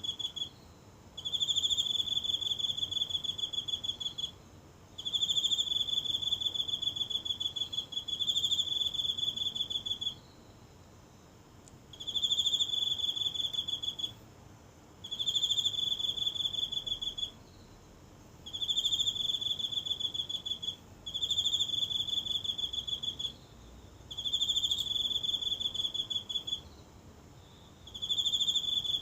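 A single insect singing high-pitched, pulsing trills in phrases of about two to three seconds, broken by short pauses of about a second, roughly ten phrases in a row.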